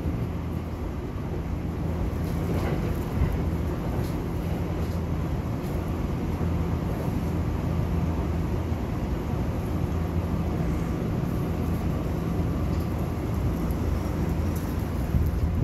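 Electric commuter train running between stations, heard from inside the passenger car: a steady low rumble with a constant low hum.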